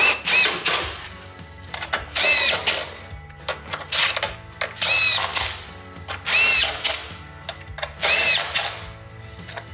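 DeWalt cordless driver running bolts into a snowmobile chain case in five short bursts, each motor whir rising and falling in pitch.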